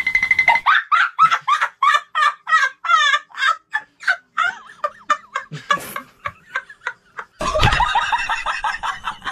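Rapid string of poultry clucking and gobbling calls, about three a second, laid over the footage as a comic sound effect. Near the end a louder sound with deep bass comes in.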